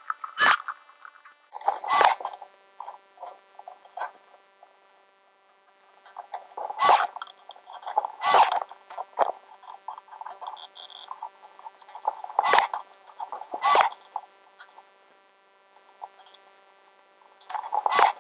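A compound mitre saw cuts timber in short loud bursts, about seven in all, mostly in pairs a second or so apart. Quieter knocks and scrapes of the wood being handled fall between them.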